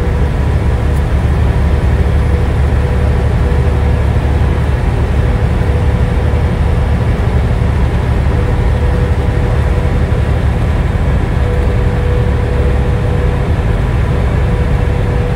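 Semi-truck cab at highway speed: a steady, loud low drone of engine and road noise, with a thin steady tone running through it.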